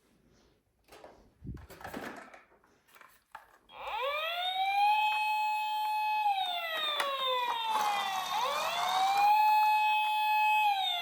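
Clicks and knocks of a small toy being handled, then about four seconds in a toy emergency vehicle's electronic siren switches on: a wail that rises quickly, holds a high note for a couple of seconds, slides slowly down, then rises and holds again.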